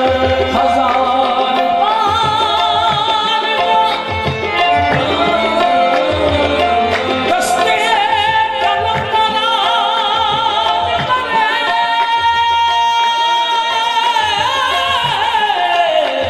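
Live qawwali: male voices singing a melismatic line with ornaments, over held harmonium notes and a steady tabla rhythm, amplified through a sound system.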